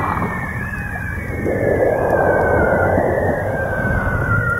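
Underwater field recording: a long, wavering call gliding slowly down in pitch, with a fainter line above it, over a dense low rumble. A hiss swells up in the middle and fades again.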